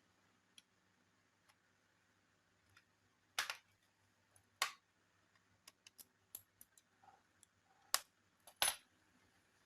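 Laptop parts and tools being handled during disassembly: sharp clicks and clatter of small hard plastic and metal pieces, four louder knocks among a run of lighter ticks.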